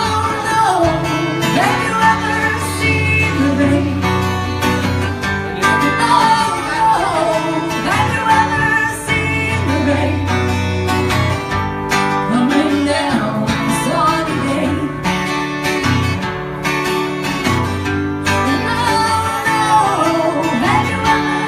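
Live music: a performer sings into a microphone while playing guitar, filling the room steadily throughout.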